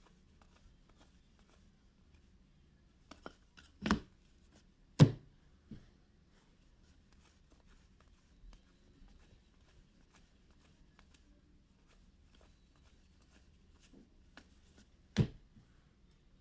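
Trading cards and packs being handled on a table: faint light rustling and ticks, with a few sharp taps, the loudest about four, five and fifteen seconds in.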